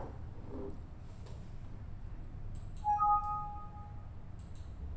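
Steady low room hum with a few faint clicks. About three seconds in, a clear two-note tone sounds and holds for about a second.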